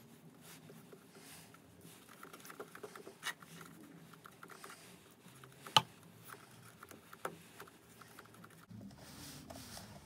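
Paintbrush dragging and dabbing thick white paint across a canvas board: faint scratchy strokes with small clicks, and one sharp click about six seconds in.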